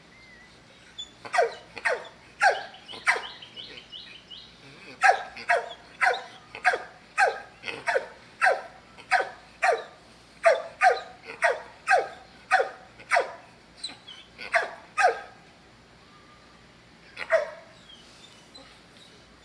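A dog barking: a few barks, a pause, then a long steady run of barks at about two a second, and one last bark near the end.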